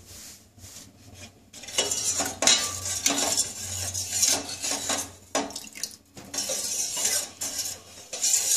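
Steel spoon scraping and clinking around the bottom and sides of a stainless steel pot as milk and rice paste are stirred, in repeated irregular strokes. The mixture for firni is being heated and kept moving so it does not catch on the bottom.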